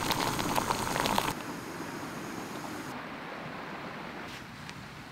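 Jetboil camp stove heating water to a rolling boil: burner hiss with the water bubbling and crackling for about the first second. It then drops suddenly to a quieter steady hiss.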